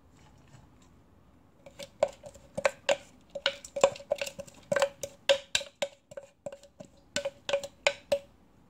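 Wooden spatula knocking against a nonstick wok while spreading minced raw vegetables, a quick irregular series of knocks, each with a short ring from the pan. The knocking starts about two seconds in and stops shortly before the end.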